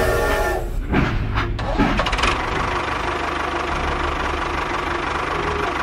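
A tractor engine starting and then running steadily with a fast, even beat, with a few knocks in the first two seconds.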